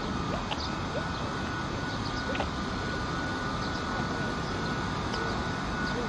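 Steady outdoor background noise: a low rumble with a thin steady whine above it and scattered faint chirps.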